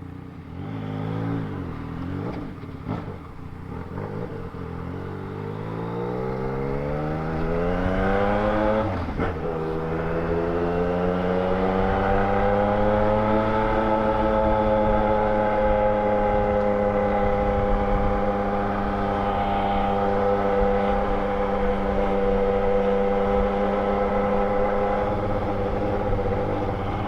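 Yamaha Tracer 900 GT's three-cylinder engine through an aftermarket 3-into-1 exhaust, pulling away and rising in pitch, dropping once with a gear change about nine seconds in, then rising again and settling into a steady cruise.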